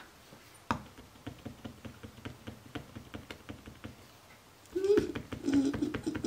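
A sharp click about a second in, then quick, even taps of a ballpoint pen on paper, about five a second, as the pen is worked on a page because it is not writing properly. A short murmur of a woman's voice near the end.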